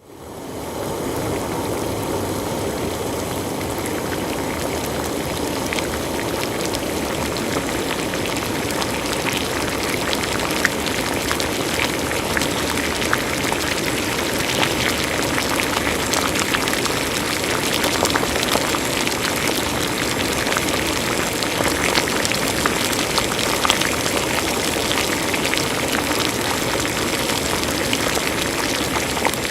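Water at a rolling boil: a steady bubbling hiss with many small crackling pops throughout.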